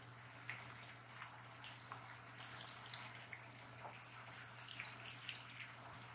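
Raw chicken drumsticks sizzling faintly in hot oil in a nonstick wok, with small irregular pops and crackles, while a wooden spoon stirs them.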